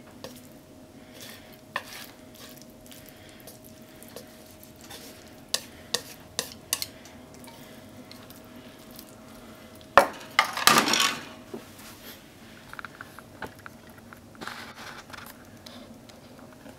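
Wooden cooking chopsticks tapping and scraping against a frying pan and a ceramic bowl as egg-topped kakiage is slid onto rice, in scattered sharp clicks. About ten seconds in comes a louder clatter of cookware, followed by a few softer clicks.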